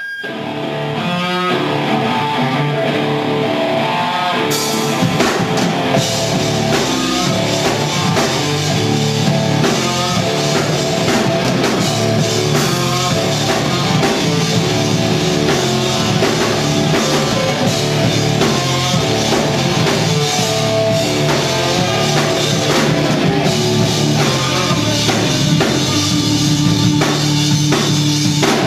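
A rock band playing live, drum kit and guitar, starting right after a short pause and carrying on with a steady beat.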